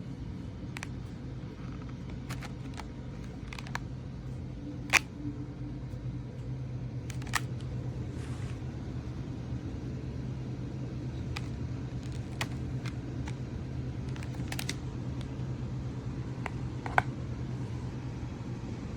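Steady low hum with scattered light clicks and taps, two of them sharper, about five seconds in and near the end.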